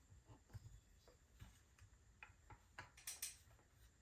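Near silence with faint, scattered clicks and taps of metal parts being handled as a chainsaw cylinder is worked over its piston, a couple slightly louder about three seconds in.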